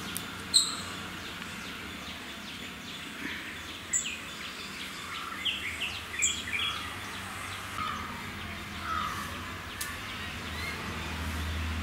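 Birds chirping and calling outdoors: many short chirps, with a few sharp, high calls standing out over a steady low background hum.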